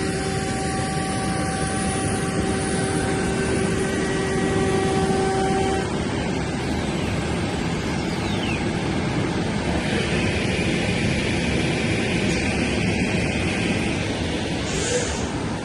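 CNC router cutting MDF: a steady whine from the high-speed spindle over a continuous rushing noise. The whine fades about six seconds in while the rushing goes on.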